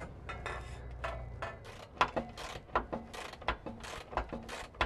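Ratchet wrench clicking in short, irregular runs, about three or four clicks a second, as the bolt of an exhaust hanger bracket is tightened.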